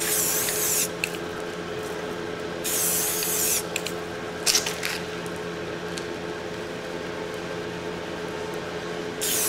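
Aerosol spray paint can spraying through a bundle of dry grass held over a rifle, in short hissing bursts: one right at the start, a longer one of about a second about three seconds in, a brief one soon after, and another near the end. A steady low hum runs underneath.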